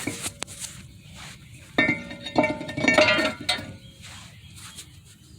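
Cast-iron brake rotor being handled and fitted over the new hub's wheel studs: metal clanks and knocks with a bell-like ring, the loudest cluster about two to three and a half seconds in.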